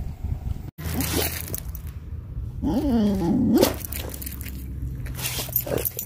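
A dog whining: one wavering, pitched cry lasting about a second, a little under three seconds in. It is straining toward ducks on the shore that it cannot reach.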